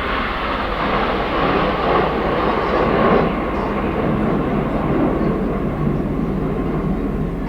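Jet roar from a formation of BAE Hawk T1 jets flying past, a loud noise that swells to its peak about three seconds in and then sinks lower in pitch.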